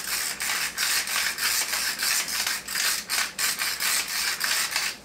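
Hand-twisted pepper mill grinding black peppercorns: a steady run of short rasping grinds, about three a second.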